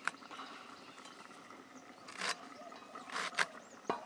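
A knife cutting through tender pumpkin shoots and leaves held in the hand: a few short, crisp cuts, spaced irregularly.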